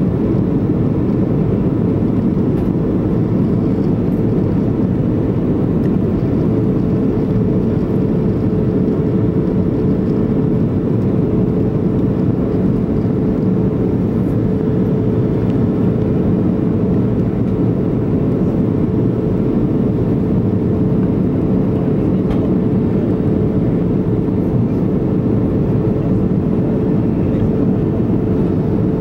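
Cabin noise of a Boeing 737-500 in flight, heard from a window seat over the wing: a steady rush of airflow and the CFM56-3 turbofans running. A steady hum joins in about six seconds in.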